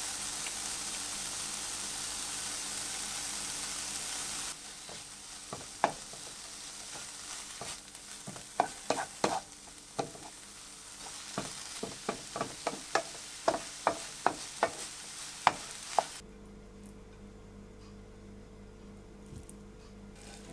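Oatmeal and chopped vegetables sizzling in a frying pan. After a few seconds the sizzle gets quieter and a wooden spatula stirs the mixture, knocking and scraping against the pan in a string of sharp clicks, about fifteen or more.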